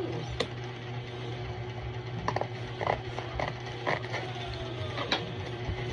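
Scissors cutting through packing tape on a cardboard box: a run of short, sharp clicks and scrapes. A steady low hum runs underneath.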